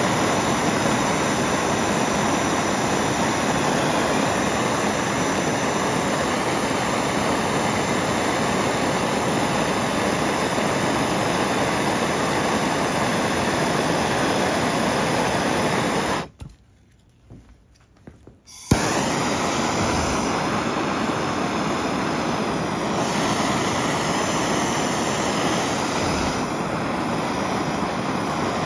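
Handheld gas plumbing torch flame hissing steadily as it heats a threaded copper fitting for soldering. The sound cuts out abruptly for about two seconds just past halfway, then returns unchanged.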